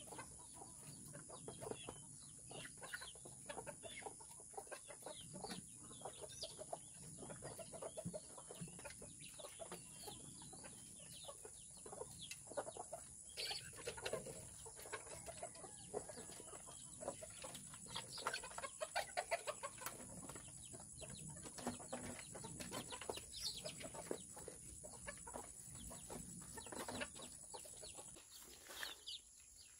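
A flock of native chickens clucking in many short, scattered calls as they gather around a bowl of feed.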